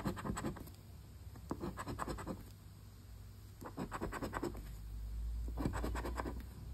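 A coin scraping the coating off a paper scratch-off lottery ticket: four short bursts of quick back-and-forth strokes with pauses between them.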